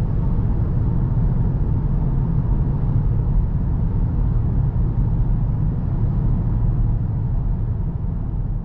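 VW Golf GTD's 2.0 TDI diesel engine and tyres heard while driving: a steady low rumble, easing slightly near the end.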